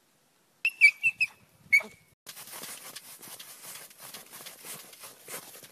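A dachshund gives three quick high yips and then a yelp that drops sharply in pitch. It then digs into snow with its paws and nose, a steady scratchy crunching of snow with many small clicks.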